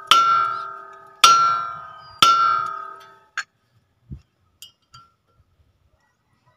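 A hammer strikes a Ford Ranger's brake rotor disc three times, about a second apart. Each blow leaves the steel disc ringing with several clear tones that die away. The rotor is being knocked loose from the hub so it can come off.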